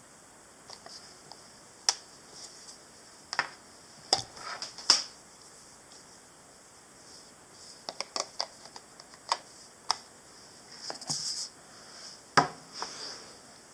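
Irregular clicks, taps and brief rustles of something small being handled, with the loudest sharp clicks about 2, 5, 10 and 12 seconds in, over a faint steady hiss.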